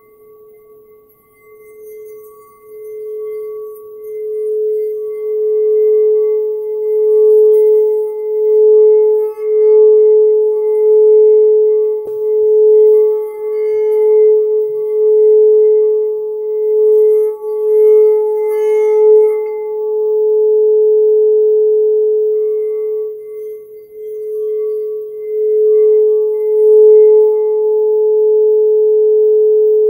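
Quartz crystal singing bowl played around its rim with a mallet. It sustains one steady ringing tone that builds over the first several seconds and then wavers gently in loudness about once a second.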